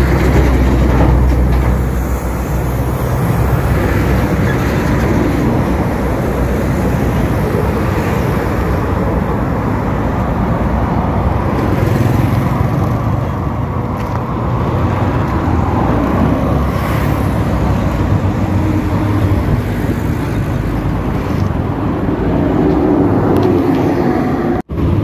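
Riding a motorcycle along a busy road: steady engine, road and traffic noise with wind rushing over the microphone. The sound cuts out for an instant near the end.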